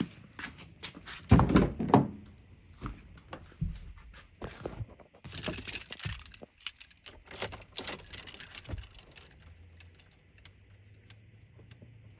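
Car keys jangling and clicking as they are handled, with a couple of heavy thumps about a second and a half in.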